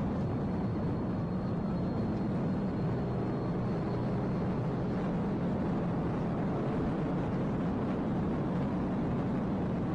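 Steady vehicle noise: a constant low rumble with no breaks, and a faint high whine that fades out about halfway through.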